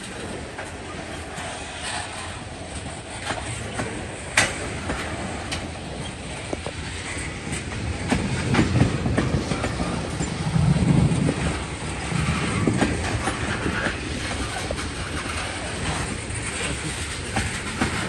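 Freight train tank cars being shoved past on the rails. Their wheels click and knock over the rail joints, with one sharp knock about four seconds in, under a steady rolling rumble that grows louder partway through.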